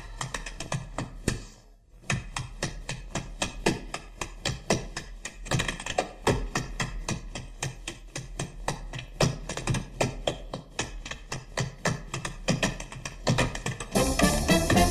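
Tap shoes on a stage floor: an unaccompanied tap-dance break of rapid, rhythmic taps in quick runs, after a brief pause about two seconds in. The swing band comes back in near the end.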